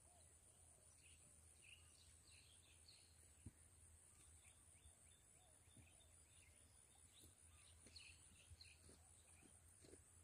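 Near silence: faint outdoor ambience with scattered small bird chirps and a steady high-pitched insect drone.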